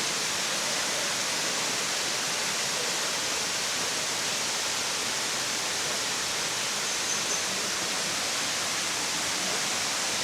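Kursunlu Waterfall's water cascading: a steady, even rushing hiss.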